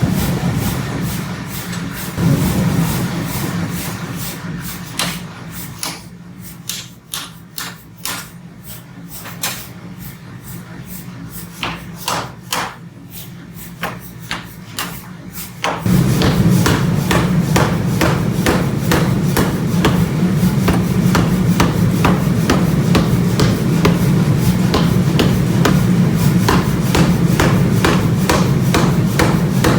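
Steel being hammered, with separate blows over a steady machine hum; about halfway through, a louder, fast, continuous run of blows begins.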